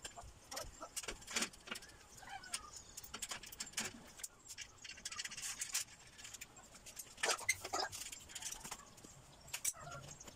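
Rapid, irregular clinks, clicks and knocks of metal tools and small bicycle-kit parts being handled, with a few louder clatters near the end.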